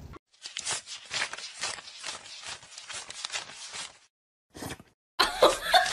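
Paper banknotes being flicked through and counted by hand: a quick run of crisp paper flicks, about four or five a second. They stop about four seconds in, and a brief flurry follows.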